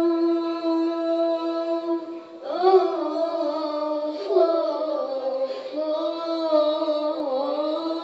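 Rababa, the single-string bowed Bedouin fiddle, playing a slow melody. It holds one long note, then moves on about two and a half seconds in to a phrase with sliding, ornamented pitches.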